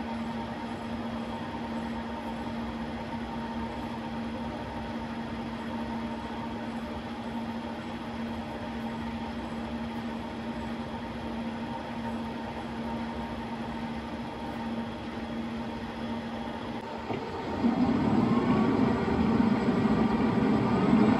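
Metal lathe with a steady motor hum; about three-quarters of the way through, the spindle starts and the chuck spins, and the machine gets louder with a wavering whine.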